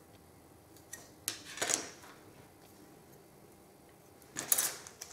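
Light handling noises of a clear plastic model-kit sprue: a few brief hard-plastic clicks and knocks as it is moved and set down on a cutting mat, with a short crinkly rustle near the end.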